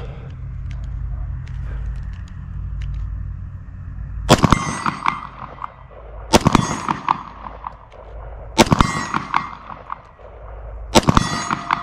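Four shots from a Glock 29 Gen 5 10mm pistol, the first about four seconds in and the rest about two seconds apart, each followed by a brief ringing tone.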